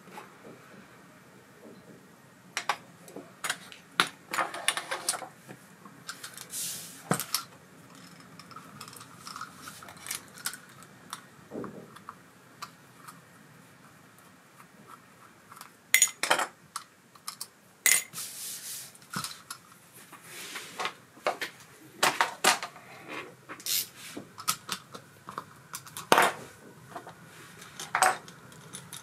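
Small metal parts of an ABU Ambassadeur 4600 CA baitcasting reel and hand tools clicking and clinking against each other and a hard work surface at irregular intervals, as the reel is worked on by hand.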